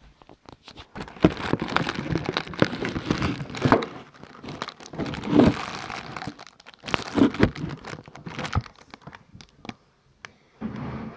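Rustling, crinkling and irregular knocks of things being handled close to a phone's microphone.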